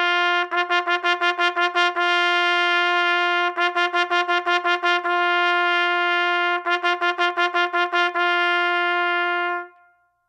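A trumpet holding a single G on one unbroken breath, with three quick runs of tongued repeats on the same note, each about a second and a half long, between stretches of plain held tone; the note stops near the end. The tongue only briefly interrupts the airstream while the air stays constant.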